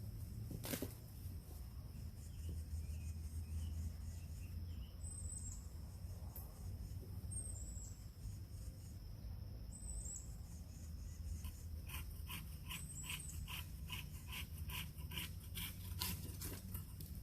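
Outdoor rural ambience: a steady high insect drone, a few short high bird chirps, and a low rumble. About two-thirds of the way in comes a run of rhythmic rasping strokes, about two a second, lasting around five seconds.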